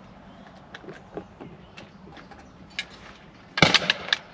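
A few faint clicks, then a sharp metallic clatter of two or three clacks about three and a half seconds in: the bolt of a .410 bolt-action shotgun being worked to load a cartridge.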